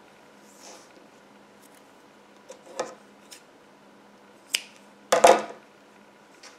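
Scissors snipping through yarn: a few light blade clicks, then a louder double snip about five seconds in.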